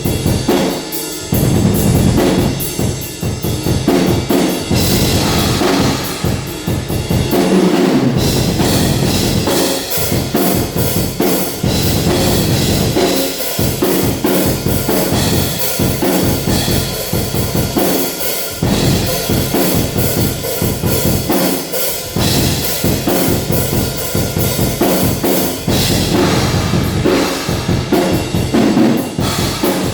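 Acoustic drum kit played in a living room: bass drum, snare and cymbals in continuous, busy playing.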